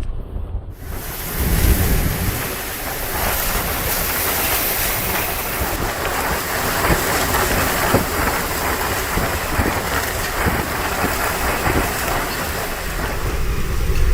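Hurricane-force wind and heavy rain: a steady, loud rushing noise that fills in about a second in, with low rumbling wind buffeting on the microphone.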